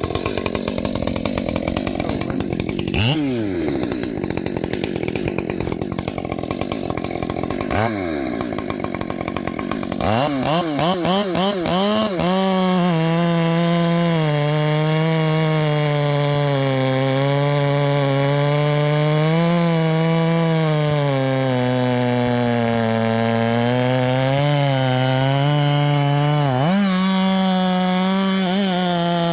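Ported Husqvarna 564 XP two-stroke chainsaw running at high revs: it drops in pitch twice early on, blips the throttle, then holds a long run under load, its pitch rising and sagging as the chain bites into the wood.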